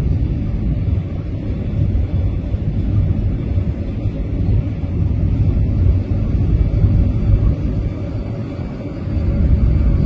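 Steady low rumble aboard a ferry under way at sea, engine noise mixed with wind, swelling a little near the end.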